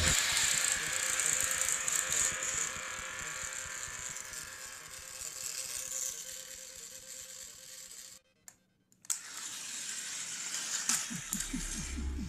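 Battery-powered toy train locomotives running on plastic track: a small electric motor whirring with a fast, even rattle of wheels and gears. It fades as the trains move off, and a few clicks come near the end.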